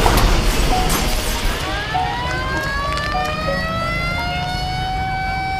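The noisy tail of a crash dies away over the first second or so. An emergency vehicle's siren then wails up in pitch and holds high, over a low steady rumble.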